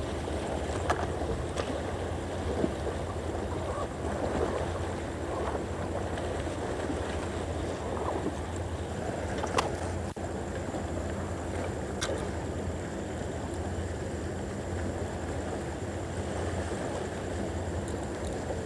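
Steady wash of sea and wind at a shoreline, with a few short, light clicks of fishing tackle being handled: a spinning rod and reel being rigged with a lure.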